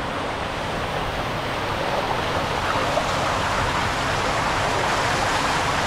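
Steady rushing of running water at a water park, with no strokes or breaks.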